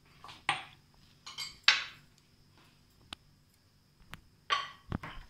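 A steel pot of custard and its steel ladle clinking and knocking as the pot is handled and set down on the counter: several separate metal knocks, the loudest a little under two seconds in.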